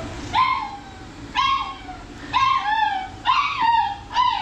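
A schnauzer crying out over and over, five yelping cries about a second apart, each dropping in pitch. It is the frantic, distressed crying of a dog in a cage dryer, sounding as if it is being murdered.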